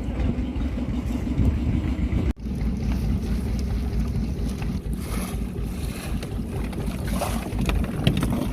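A small fishing boat under way at sea: a steady low rumble, with wind buffeting the microphone and water splashing against the hull. The sound drops out briefly a little over two seconds in.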